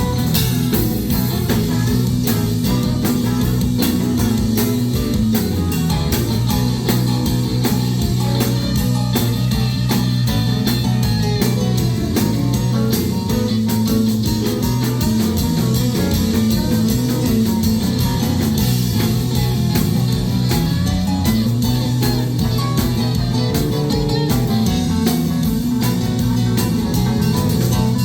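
A live band playing an instrumental passage of guitar and drum kit over a steady bass line, with a constant run of cymbal and drum hits.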